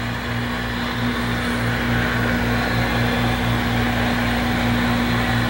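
HO-scale model diesel locomotive running, its DCC sound decoder giving a steady diesel engine rumble with a low, evenly pulsing beat and a constant hum through its small speaker.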